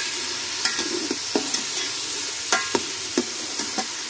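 Onions frying in oil in an aluminium pot, with a steady sizzle, while a metal spatula stirs them. The spatula scrapes and taps against the pot as about seven sharp clicks, a couple of them ringing briefly.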